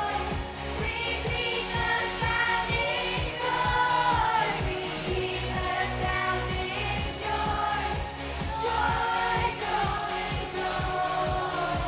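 Children singing over pop-style music with a steady beat.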